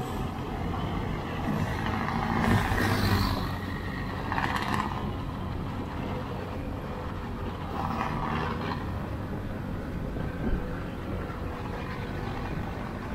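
Road noise from riding a Honda Click 125i motor scooter in city traffic: a steady low rumble of engines and wind, swelling louder a couple of seconds in.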